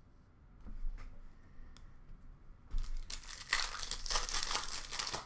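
Foil wrapper of a baseball card pack being torn open and crinkled, starting about three seconds in, after a little quiet handling of cards.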